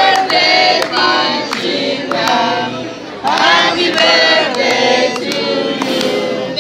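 A group of people singing a birthday song together, with a short break between phrases about three seconds in.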